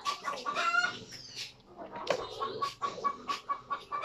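Chickens clucking in the background, with a run of quick, evenly repeated calls in the second half.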